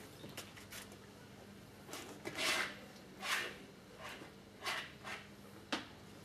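A brush scrubbing oil paint across a stretched canvas on an easel: several short swishes of a stroke each, with a sharp tap near the end, over a faint steady hum.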